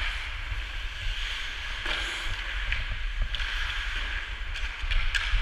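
Ice skate blades scraping and carving across rink ice in a steady hiss over a low rumble, with a few sharp clicks of hockey sticks and puck during play.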